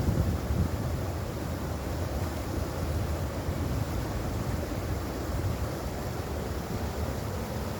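Mountain stream water rushing over rocks: a deep, steady, unbroken rush.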